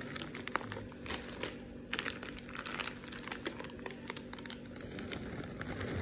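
Clear plastic bag crinkling with irregular crackles as it is handled and tipped to pour almonds into a bowl.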